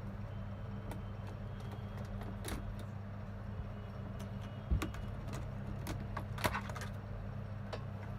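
Steady low hum with scattered small clicks and taps of tools and parts being handled on a laptop repair bench, the loudest tap a little under five seconds in.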